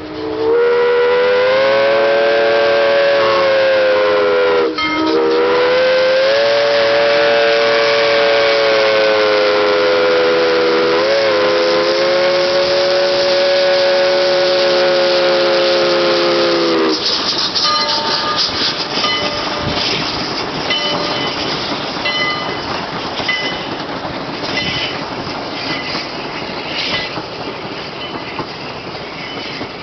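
A locomotive's whistle blows one long chord of several notes for about seventeen seconds, its pitch sagging briefly twice. Then the passing train's wheels rumble and clack over the rail joints.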